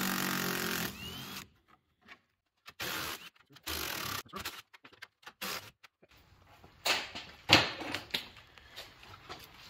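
Cordless impact driver with a socket extension backing out the 10 mm bolts on top of a Ford Bronco grille: one run of about a second, then three short bursts a little later. A few sharp knocks follow near the end.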